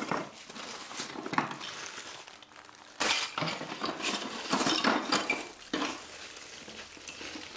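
Hard plastic canister-filter fittings clattering and knocking together as they are tipped out and sorted by hand in a cardboard box, with a plastic bag crinkling. Irregular clatter, the loudest burst starting suddenly about three seconds in.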